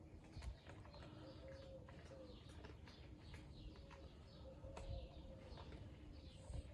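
Stray cats eating: faint, irregular clicks and crunches of food being chewed, with a soft wavering low tone underneath.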